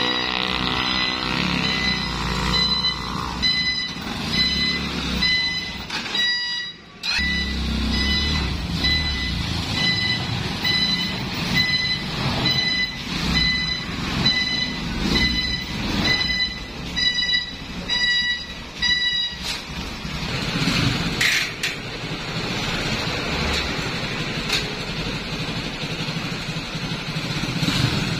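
A 400cc cargo ATV's engine running at low speed while a high electronic beeper sounds about once a second, typical of a reverse-gear warning buzzer; the beeping stops about two-thirds of the way through, leaving the engine running.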